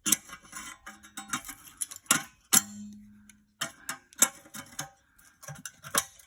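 Metal clanking and knocking as a partly cut rusty steel piece on a lawnmower is worked back and forth to break it off, with a couple of blows that leave the metal ringing for about a second.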